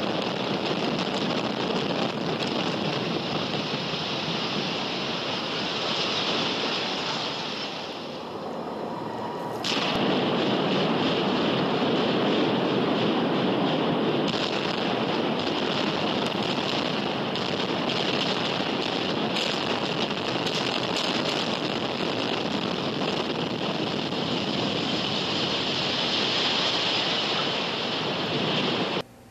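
Steady, loud rushing noise from the soundtrack of a video artwork playing on a monitor. It eases off about eight seconds in, returns louder at about ten seconds, and cuts off suddenly near the end.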